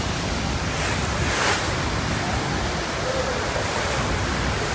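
Steady roar of Niagara Falls and the churning white water below it, with wind buffeting the microphone. A brief louder hiss comes about a second and a half in.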